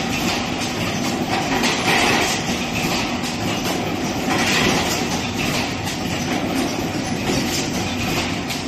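Fully automatic PET bottle blowing machine running: a steady mechanical rattle and clatter, with a burst of compressed-air hiss every two to three seconds as each blowing cycle vents.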